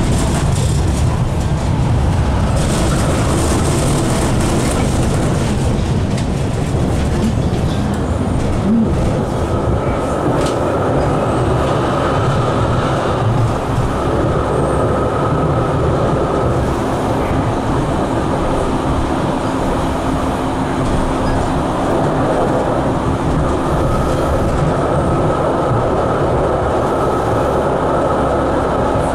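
NGT8B tram running along street track, heard from inside the car: a steady rumble of wheels on rail and running gear, with a high steady tone that comes in twice, once around a third of the way through and again near the end.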